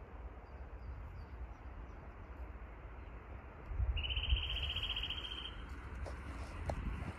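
Wind rumbling on the microphone over faint outdoor background noise. About four seconds in, a high, rapidly pulsing trill sounds for under two seconds.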